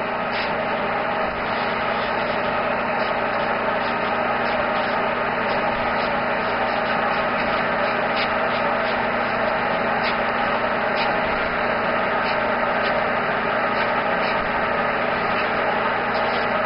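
Airbrush air compressor running steadily, a constant motor hum with hiss.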